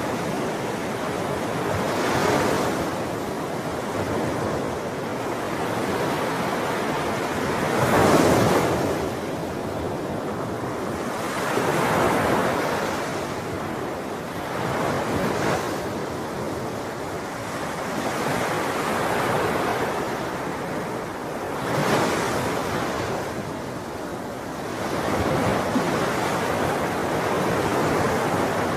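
Ocean waves breaking and washing on the shore, a steady rush of surf that swells with each wave every few seconds, loudest about eight seconds in.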